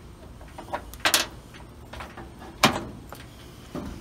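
A few sharp clicks and knocks of hard metal and plastic parts being handled: a key being pulled from a loose ignition switch and the switch moved among its wires. A double click about a second in, another near the middle, a fainter one near the end.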